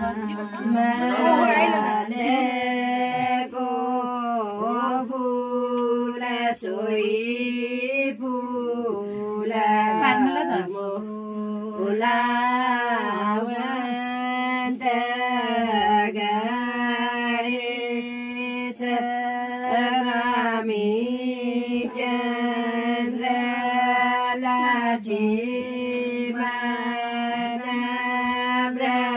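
Chant-like singing: a voice carries a wavering melody over a steady, unbroken drone note.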